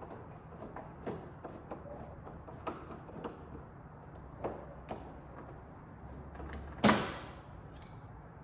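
Light clicks and taps of a screwdriver and metal parts as a chrome interior door handle is unscrewed from a Scout II door, with one sharp metallic clank about seven seconds in.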